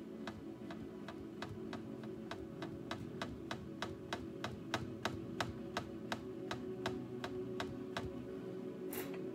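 A stiff paintbrush tapping and dabbing against a stretched canvas, a quick even run of light taps, about four a second, laying in pine-tree texture; the taps stop about eight seconds in. Background music plays underneath.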